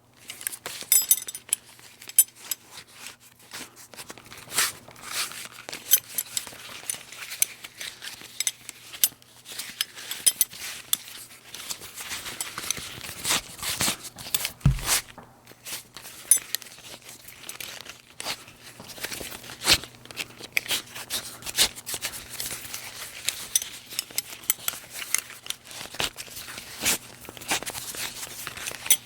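Metal buckle being handled and fastened again and again: a long irregular string of sharp clicks and clinks with rustling between them, and one dull thump about halfway through.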